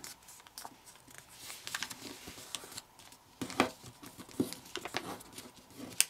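A sheet of kami origami paper rustling and crinkling as it is handled, folded and creased flat, with sharper crackles about three and a half and four and a half seconds in.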